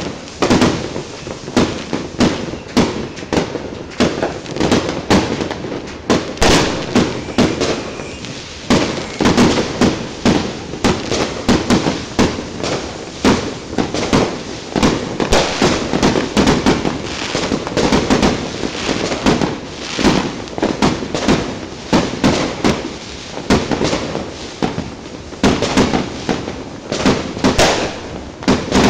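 Fireworks going off in a dense, continuous barrage: many overlapping bangs and cracks, several a second, with no break.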